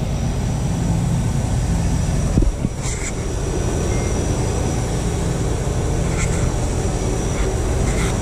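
A 20-ton York commercial condensing unit running: its condenser fans and Copeland scroll compressors make a steady, loud drone, with a few faint ticks of handling near the pipework.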